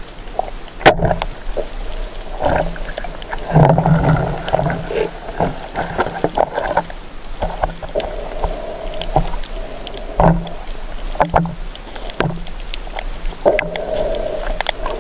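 Muffled, hollow underwater noise picked up by a camera held in shallow seawater during a spearfishing dive. Irregular rushing surges and short groaning tones come with several sharp knocks, the strongest about a second in.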